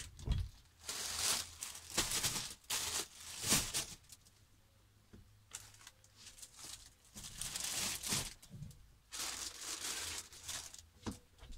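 Plastic shopping bags and packaging rustling and crinkling in irregular bursts as groceries are unpacked and put away, with a few light knocks of items being set down.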